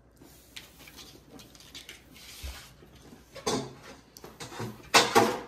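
Kitchen handling noises from working with dough and a baking tray: soft scuffs and light taps, a louder clatter about three and a half seconds in, and the loudest clatter near the end.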